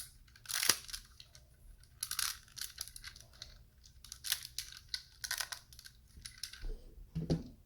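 Plastic LEGO Technic pieces clicking and rattling as they are handled and pressed together, in short clusters of clicks with brief pauses between.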